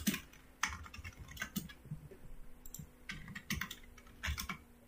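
Computer keyboard typing: irregular keystrokes in short runs, with a brief lull in the middle.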